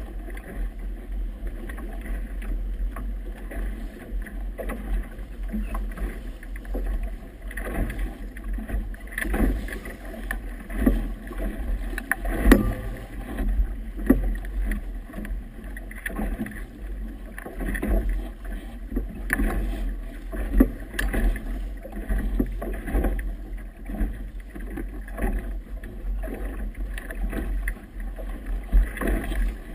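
Wind buffeting a camera microphone as a steady low rumble, with choppy river water slapping irregularly against a boat's hull. The sharpest slap comes about twelve seconds in.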